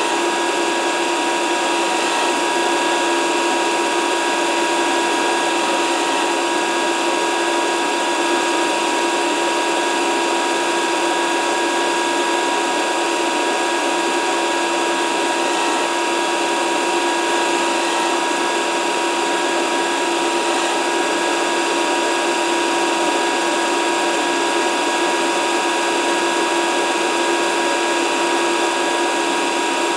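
Grinder running steadily with its wheel taking a light cut on metal: a constant motor whine made of several fixed tones over a grinding hiss.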